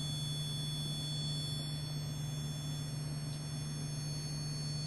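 An electronic device sounds a continuous, unchanging tone: two steady high tones over a low steady hum.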